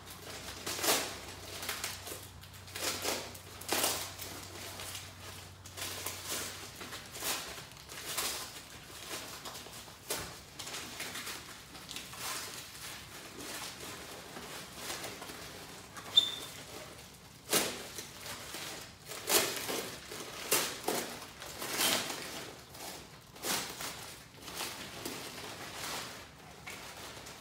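Brown packing paper crinkling and rustling in irregular bursts as it is pulled off a wrapped carving.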